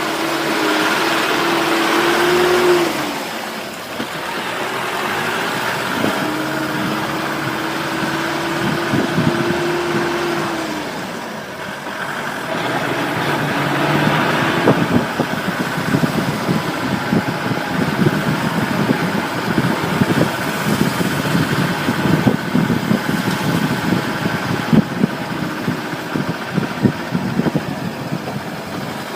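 An off-road vehicle's engine running under load, its pitch holding and then dropping away twice in the first half. Through the second half, irregular knocks and rattles come thick and fast as the vehicle jolts over a rough track.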